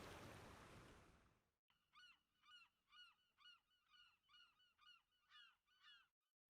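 A rushing noise fades out over the first second and a half, then after a brief silence a bird calls about nine times in a row, roughly two calls a second, each call rising then falling in pitch. All of it is faint.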